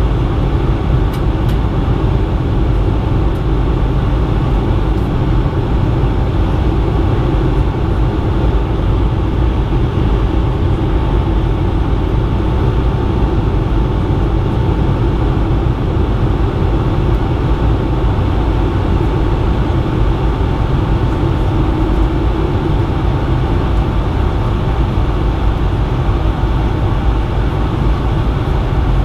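Steady in-flight cabin noise inside a Bombardier CS100 (Airbus A220-100): the even rush of airflow and the aircraft's Pratt & Whitney PW1500G geared turbofan engines, with a thin steady tone riding over it.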